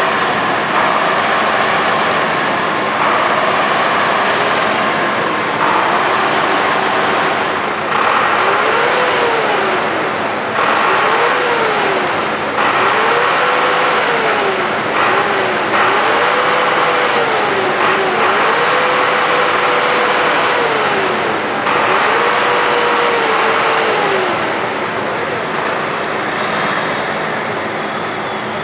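Farm machine engine running, revved up and let back down about seven times, each time holding briefly at the top before falling away.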